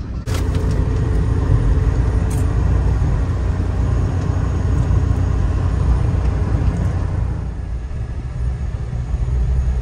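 Steady low rumble of road and engine noise heard inside the cabin of a car moving along a highway.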